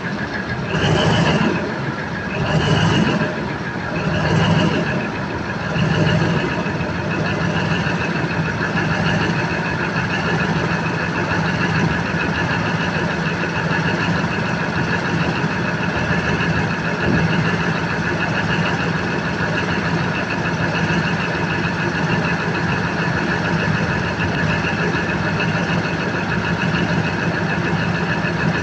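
Freshly overhauled Cummins KTA50 16-cylinder turbocharged diesel engine idling. It swells and eases about every one and a half to two seconds for the first several seconds, then settles into a steady run.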